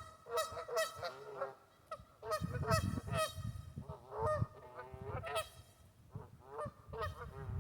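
A flock of geese honking, many short calls overlapping in quick succession.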